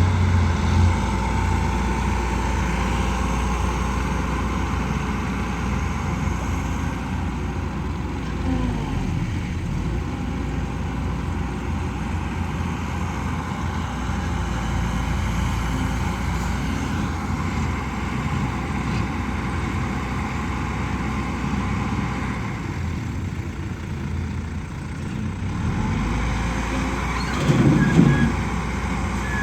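Kobelco SK120 Mark 3 excavator's diesel engine running steadily while it digs and loads soil into a dump truck, with a brief louder burst near the end.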